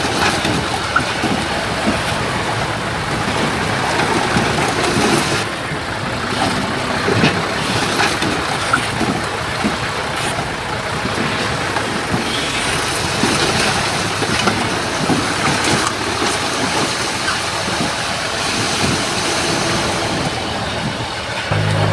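Heavy earthmoving machinery working: an engine running under load with scattered clanks and knocks throughout. Near the end a steadier low engine drone takes over.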